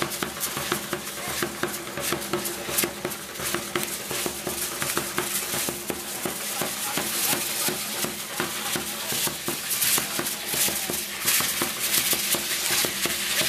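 Street dance troupe's hand rattles and wooden bows clicking and rattling rapidly and continuously, with a bass drum beating underneath.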